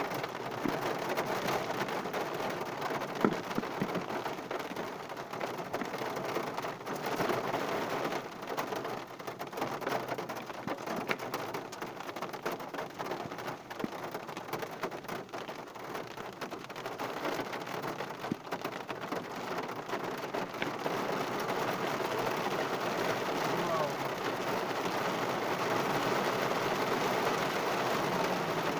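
Heavy rain falling on a car's roof and windows, heard from inside the car: a dense, steady patter of drops that grows a little louder and more even in the last few seconds.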